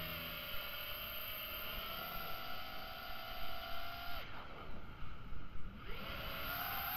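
Brushless motors and propellers of an iFlight Nazgul FPV quadcopter whining, recorded by the GoPro on board. The whine steps up in pitch about two seconds in, nearly drops out around four seconds in as the throttle is cut, then climbs back in pitch as power returns near the end.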